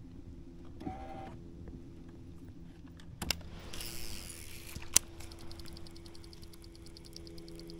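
Electric trolling motor on a fishing kayak humming steadily, its tone shifting slightly about three seconds in. Around the middle there are two sharp clicks and a brief high hiss, then a fast light ticking from about six seconds in.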